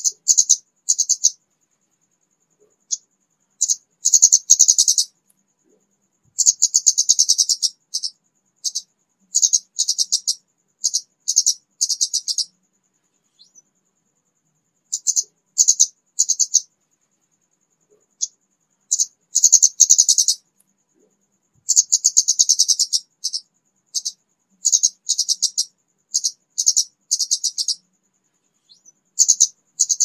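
Kamade bird lure call: high-pitched, sharp chip notes fired in quick clusters lasting from half a second to about two seconds, with short pauses between clusters, over a faint steady high whine.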